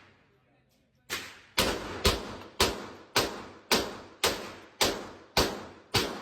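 Handgun fired in rapid, evenly spaced shots, about two a second, starting about a second in, each shot a sharp crack with a short ringing tail.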